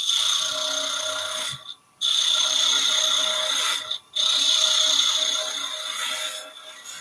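Wood lathe running with a steady whine while a turning tool cuts a small spindle of scrap wood, giving an uneven rasping chatter. The sound drops out briefly twice.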